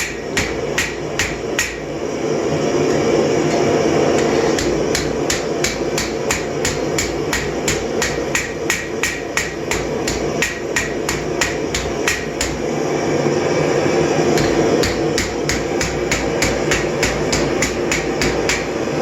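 Hand hammer striking hot steel on an anvil, in quick runs of about two to three blows a second with a couple of short pauses. The blows are drawing out the tip of a knife being forged from an old rasp.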